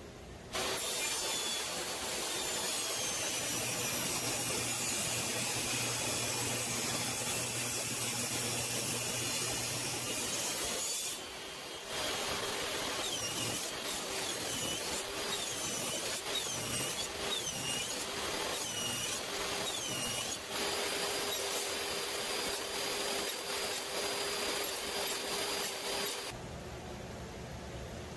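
DeWalt jobsite table saw running and cutting walnut stock for bridle joints. There is a short lull about eleven seconds in. Later the blade's whine dips and recovers about once a second as the wood is pushed through in repeated passes, and the saw cuts off about two seconds before the end.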